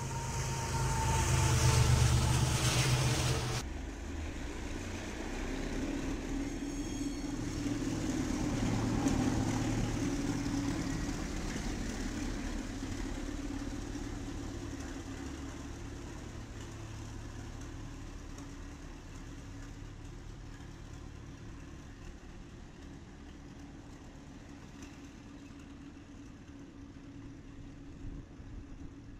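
Diesel locomotives of a BNSF-led freight train passing close and loud for the first three and a half seconds, then cut off abruptly. After that, a quieter steady low diesel engine hum swells for a few seconds and then slowly fades.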